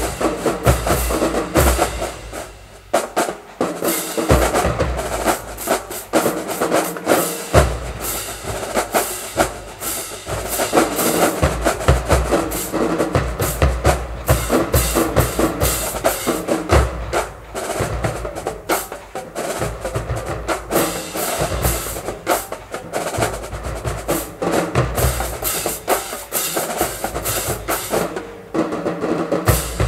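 A marching drumline, snare and bass drums, playing a fast, dense cadence with snare rolls. The low bass-drum hits thin out about two seconds in and come back heavily about seven seconds in. The playing drops briefly near the end before picking up again.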